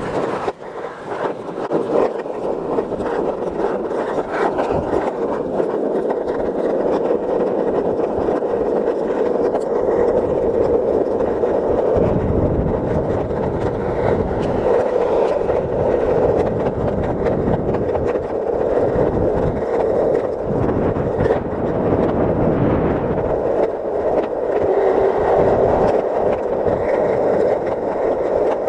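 Skateboard wheels rolling steadily over asphalt, a continuous rolling roar that grows deeper and fuller about twelve seconds in.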